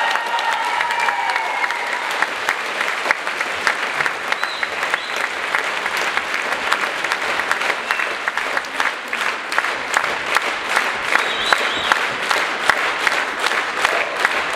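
A theatre audience applauding a curtain call. About halfway through, the clapping falls into a steady beat in unison, roughly three claps a second.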